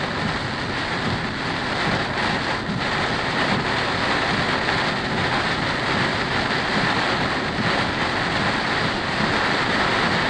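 Steady noise of a car driving in heavy rain, heard from inside the cabin: rain on the car and tyre noise on the wet road.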